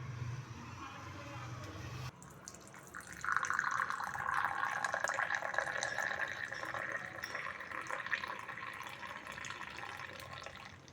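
Liquid poured in a steady stream into a cup or pot during tea making, starting a little after three seconds in and easing off near the end. Before it, a low hum cuts off about two seconds in.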